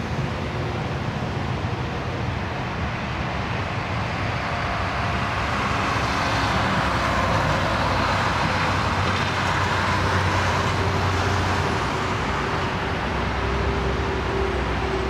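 AeroMexico jet airliner landing: a steady rush of jet-engine noise with a faint whine, swelling for several seconds in the middle and easing a little toward the end.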